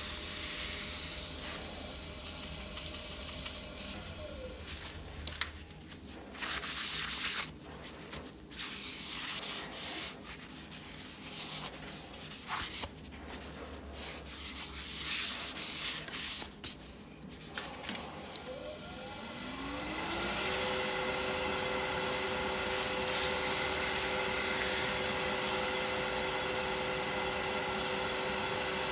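A wood lathe spins down, and a paper towel is rubbed in uneven strokes over the stopped burl-and-resin bowl. Near the end the lathe runs back up to a steady hum, with the towel hissing against the spinning bowl as it is buffed.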